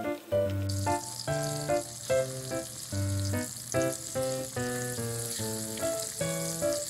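Tofu slices wrapped in seaweed and coated in potato starch sizzling as they fry in oil in a pan, the sizzle picking up about a second in. Light background music with a plucked melody plays over it.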